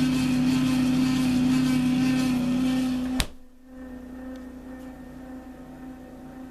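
Noisy refrigerator running with a loud, steady, buzzing hum. About three seconds in there is a sharp click and the loud hum cuts off suddenly, leaving a much fainter hum.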